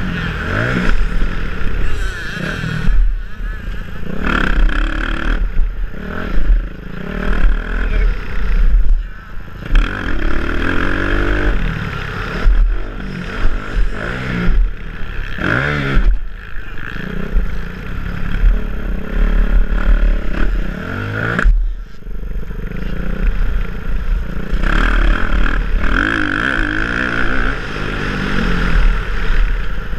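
Dirt bike engine revving hard and falling back over and over as the rider accelerates, shifts and brakes around the track, heard from a helmet-mounted camera with steady low rumble from wind on the microphone.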